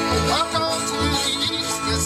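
A bluegrass band playing an up-tempo tune together: banjo, acoustic guitar, upright bass, fiddle and mandolin, with regular low bass notes under the strummed and picked strings.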